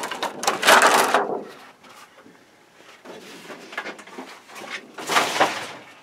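A large insulating sheet being peeled off a circuit board and rustling. The rustle is loudest in the first second and a half, with a second, shorter rustle about five seconds in.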